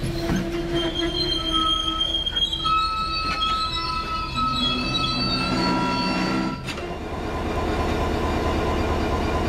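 Loaded PCA tank wagons rolling slowly past with steady, high-pitched wheel squeals as the train slows. About seven seconds in the squealing stops abruptly and is replaced by the even rumble of the Class 66 diesel locomotive ticking over, its EMD two-stroke V12 engine idling.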